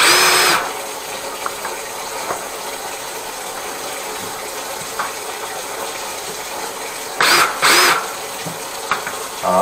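A handheld power tool's electric motor whining in short bursts, once at the start and twice in quick succession near the end, over a steady hiss.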